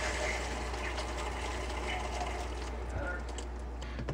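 Water hissing through an A. O. Smith reverse osmosis system's filter housings and tubing as the feed water is turned on for its pressure test, a steady rush that slowly fades.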